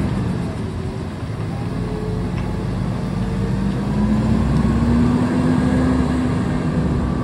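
Front-loader garbage truck's engine running as the truck drives off, its pitch rising steadily from about four seconds in as it accelerates.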